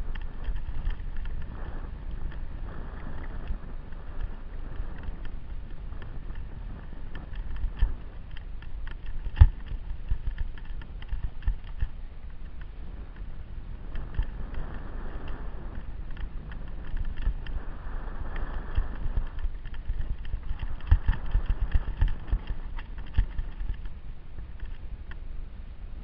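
Low wind buffeting on the microphone, with irregular knocks and rattles from a camera jolted along a rough, stony forest trail. The sharpest knocks come about nine seconds in and again around twenty-one seconds in.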